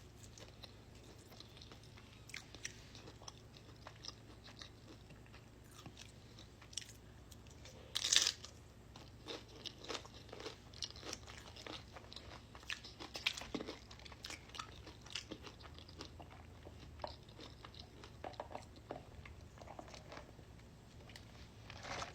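Close-miked eating: a person chewing and crunching crisp tortilla chips, with scattered small crunches and one loud crunching bite about eight seconds in.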